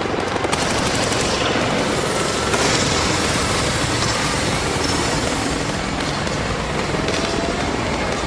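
Large arena crowd cheering and screaming as a steady, dense roar at a wrestling entrance, with no music yet.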